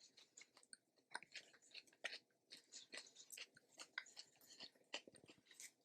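Faint close-up chewing: soft, irregular mouth clicks and smacks, several a second.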